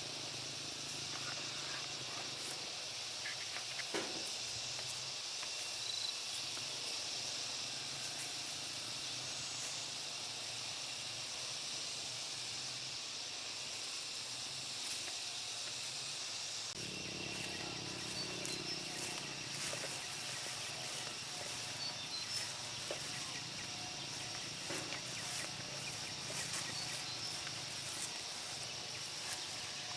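Rural outdoor ambience: a steady high-pitched hiss, like a distant insect chorus, with scattered light clicks and taps from handling or work. The background changes abruptly about halfway through.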